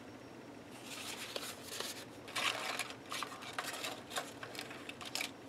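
Paper tags and cardstock die-cut cards rustling and tapping as they are handled and gathered into a clear plastic storage case, beginning about a second in with an irregular run of scuffs and small clicks.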